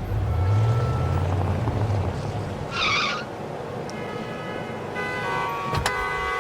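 Car engine running with road noise, a low hum strongest over the first two seconds, and a short noisy screech about three seconds in. Several steady tones come in from about four seconds in.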